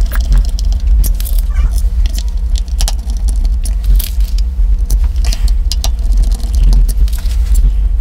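Small screwdriver turning screws back into the case of a Browning Strike Force Pro X trail camera: scattered light clicks and ticks from the tool, screws and handling of the case, over a steady low hum.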